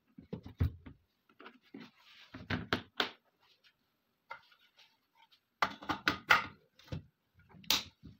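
Clicks and knocks of a wood-and-steel AK-pattern rifle being handled and set down on a table, in several short clusters. A sharp metallic click about three-quarters of a second before the end, as a curved steel magazine is rocked into the magazine well.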